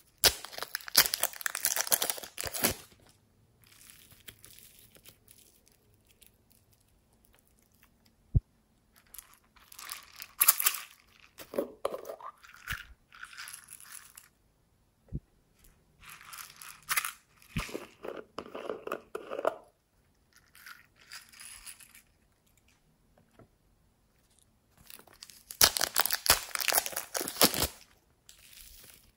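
Thin plastic packaging crinkling and tearing as clay packets are opened and handled, with crackly squishing of soft foam clay, in several crackly bursts with quiet gaps and a few single sharp ticks between.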